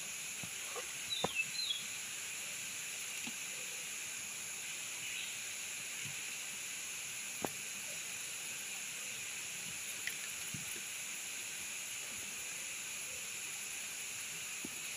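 Steady outdoor ambience beside a shallow river, with a few sharp taps and clicks from crabs being handled and cleaned at the water's edge, and brief high chirps about a second in.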